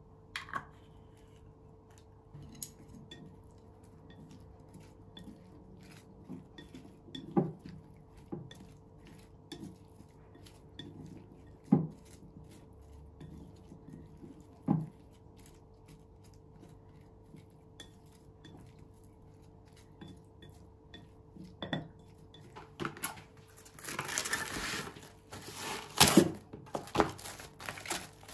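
Long wooden chopsticks tossing dressed salad in a glass bowl, with scattered knocks and clinks against the glass. Near the end, a burst of crinkling as plastic cling wrap is pulled over the bowl.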